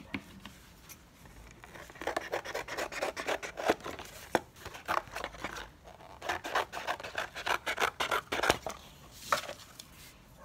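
Scissors cutting through thin cereal-box cardboard in a run of repeated snips. They start about two seconds in and stop shortly before the end.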